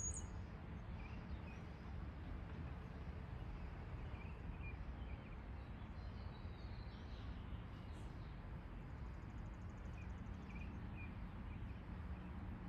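Outdoor backyard ambience: a steady low background rumble with a faint hum, and a few short, faint bird chirps about a second in, midway, and near the end.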